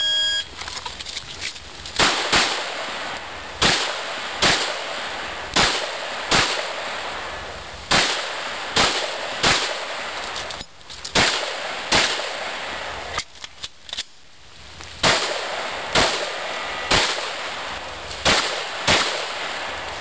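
An electronic shot-timer start beep, then about eighteen pistol shots fired in quick pairs and threes, with a pause of about two seconds near the middle.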